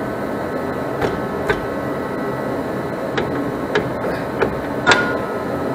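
Rusted rear brake drum on a 1974 Chevy Camaro being rocked and pulled off the axle by hand: scattered metal clunks and scrapes, the loudest about five seconds in, over a steady background hum.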